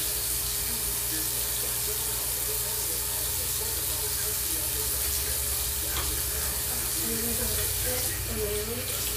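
Water running steadily from a tap into a sink, a constant splashing hiss.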